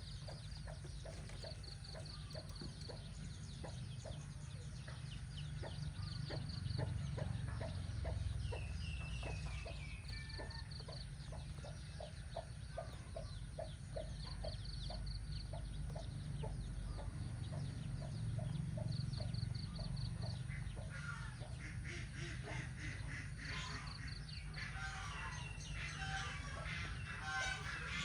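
Mother hen clucking in a long, regular run of short low clucks. Near the end a denser burst of louder, higher-pitched bird calls crowds in.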